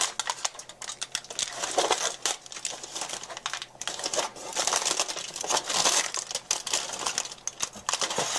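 Aluminum foil crinkling and crackling in irregular bursts as it is pulled and peeled from a slab of hardened spruce pitch. The foil is still stuck to the pitch and does not come away cleanly.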